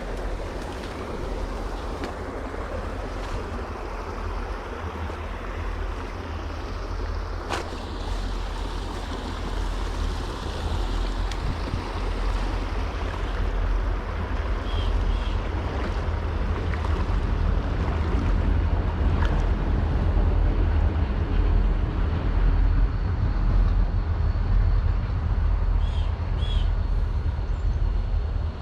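Creek water sloshing and splashing around legs as someone wades steadily, over a low rumble of wind on the microphone; a few faint high chirps come through twice.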